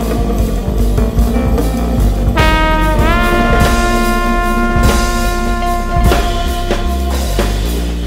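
Live jazz trio: trombone over a drum kit. About two and a half seconds in, the trombone holds one long note that bends up slightly and sustains for about three and a half seconds while the drums keep time.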